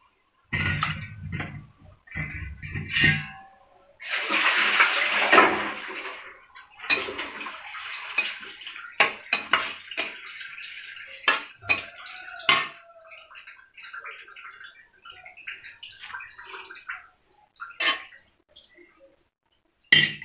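Steel ladle stirring manathakkali (black nightshade) leaves in a stainless steel kadai as they fry: a rustling hiss of the leaves being turned about four seconds in, then many sharp clinks and scrapes of the ladle against the pan. A few dull thumps in the first seconds.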